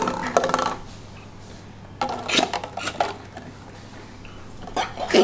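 Light plastic cups knocking and scraping against a hard tabletop as they are nudged and lifted with balloons, in three short bursts of clatter: at the start, about two seconds in, and near the end.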